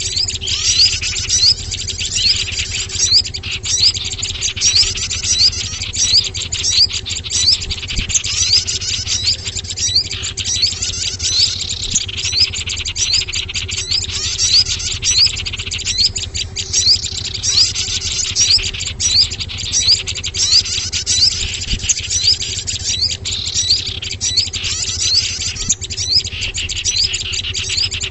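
Bird-lure recording of small songbirds: many high, rapid chirps and twitters overlapping without a break, over a faint steady low hum.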